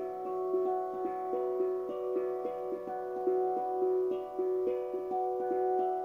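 Kosmosky Dvutone steel tongue drum tuned to B minor, played with mallets: a steady run of struck notes, several a second, each ringing on and overlapping the next.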